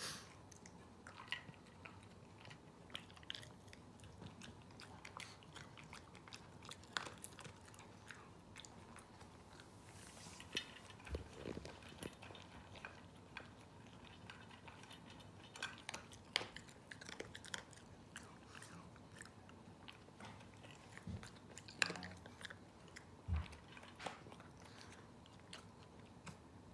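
Pekingese dog crunching dry kibble, with irregular crisp crunches and bites scattered through.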